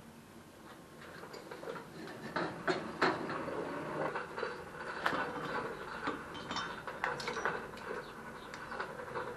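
Blacksmith's tongs and a hot steel billet clinking and scraping against the forge and anvil, a scattering of sharp metal clicks and knocks over the steady rush of the forge fire.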